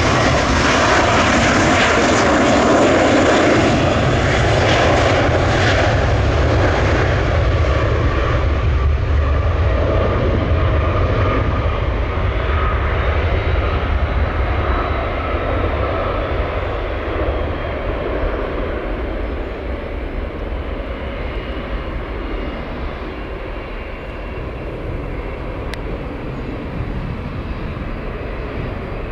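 Jet airliner's engines passing close: a loud rumble and hiss with a faint steady whine, loudest in the first few seconds, then fading slowly as the aircraft moves away, the hiss dying off first.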